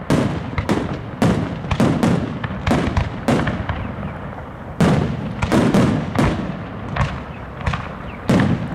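Aerial firework shells bursting in quick succession, about two sharp bangs a second, each with a short low rumble after it, and a brief lull about four seconds in. This is the run of shells leading up to a display's finale.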